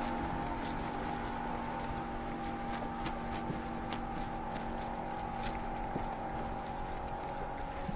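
Boat motor running steadily, a constant low hum, with scattered faint clicks over it.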